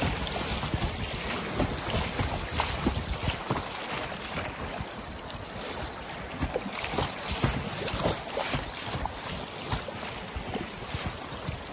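Rushing creek water in a stretch of rapids, splashing and slapping irregularly around an inflatable kayak, with wind buffeting the microphone.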